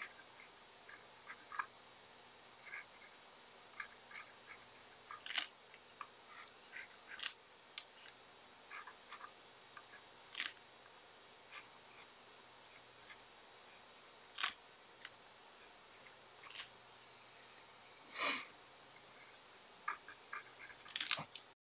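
Small paintbrush dabbing and stroking on paper: irregular short, scratchy taps, with one slightly longer stroke near the end.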